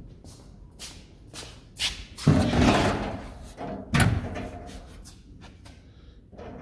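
Sheet-metal doors of a Kobalt steel storage cabinet being opened, after a few light knocks. There is a loud clatter with a second of ringing about two seconds in, and another sharp thud at about four seconds.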